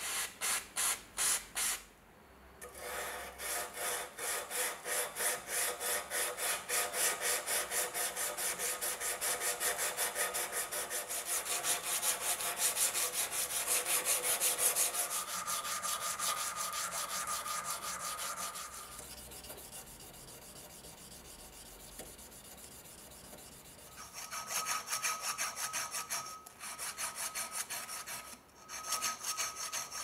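Steel pocket-knife parts being worked by hand with a file and abrasive: rhythmic back-and-forth strokes, about two a second, with a faint ringing from the metal. The strokes fade to a quiet stretch about two-thirds of the way in, then start again.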